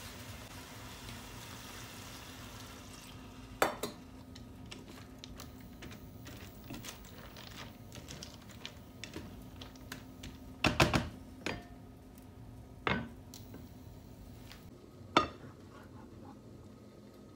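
Cooking pasta being stirred and served from a frying pan: a wooden utensil scrapes and knocks against the pan, and dishes clink a few times, loudest in a quick cluster about halfway through. A low steady hum runs underneath.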